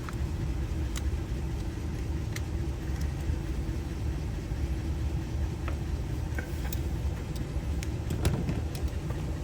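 Steady low engine rumble, like a vehicle idling, with scattered small clicks and taps from a trunk lock cylinder and tools being handled.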